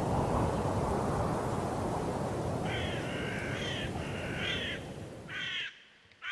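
A crow cawing four times, starting about three seconds in, over a steady rushing noise that cuts off suddenly near the end.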